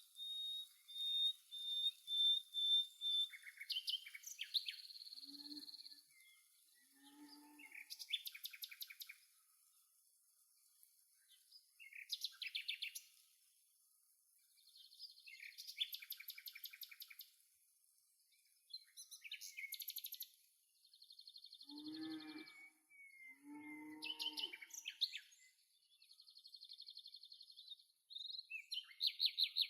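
Birds singing and calling in bouts every few seconds: a series of short high notes, then chirps and trills. A few lower-pitched calls come in twice, once early and once past the middle.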